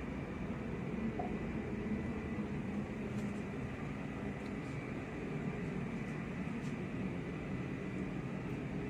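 Steady low drone of a ship's machinery and ventilation inside the accommodation, with a faint steady high tone above it.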